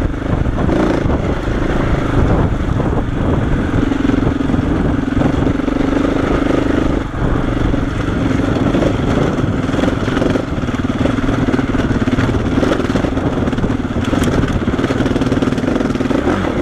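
KTM 690 Enduro's single-cylinder engine running steadily under load as the bike climbs a rough trail, dipping briefly about seven seconds in, with occasional knocks over the rocks.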